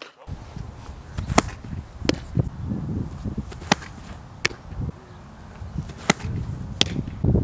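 Softball pitching: sharp pops of the ball and glove, in three pairs about three quarters of a second apart, ending with the ball smacking into the catcher's mitt. A steady low rumble of wind on the microphone runs underneath.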